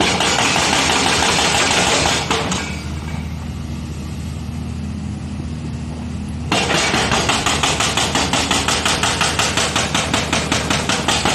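LiuGong excavator working its hydraulic breaker on the road, over the steady hum of its diesel engine: a loud clattering burst for about the first two seconds, then after a quieter spell the pounding resumes about six and a half seconds in as an even, rapid hammering of about five blows a second.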